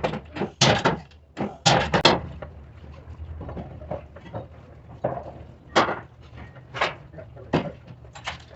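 Irregular knocks and clanks of hard parts and tools being handled and set down, some in quick clusters, over a low steady hum.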